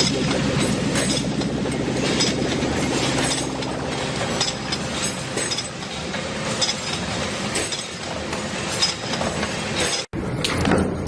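Metal clinking and knocking over a steady machine din, with many sharp strikes packed close together. It cuts off abruptly about ten seconds in, then starts again.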